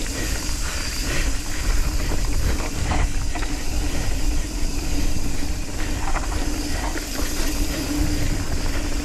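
Nukeproof Scout 275 hardtail mountain bike riding a dirt trail at speed: wind rushing over the microphone and tyre noise, with scattered knocks and rattles from the bike over rough ground.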